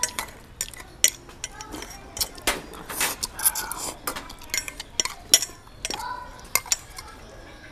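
Chopsticks and metal spoons clicking and clinking against small stainless steel bowls as noodles are eaten, with short hissy slurps of noodles now and then.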